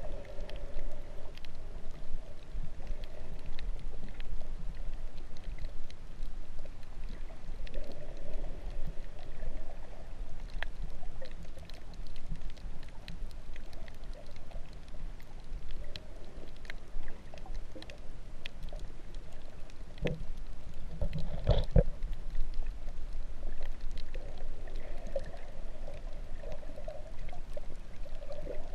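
Underwater sound picked up by a GoPro in its waterproof housing while snorkeling over a coral reef: a steady low water rush with many scattered faint clicks and a muffled swell every several seconds. A louder dull thump comes about twenty-one seconds in.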